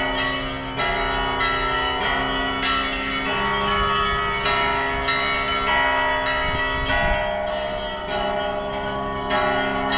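Russian Orthodox church bells ringing: several bells of different pitches struck one after another, about once or twice a second, each ringing on over the next. A peal of the kind rung for a church service.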